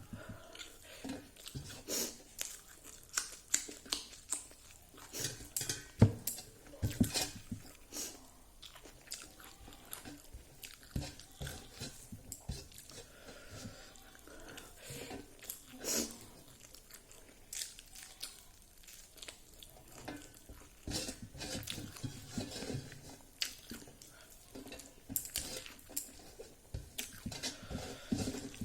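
A person eating by hand, chewing and crunching on fried dried pork with rice in irregular bites, with occasional light clinks from a plate.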